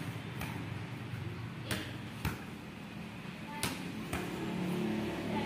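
A volleyball is struck by hands and rebounds off a wall in a solo wall drill: six sharp slaps, mostly in pairs about half a second apart.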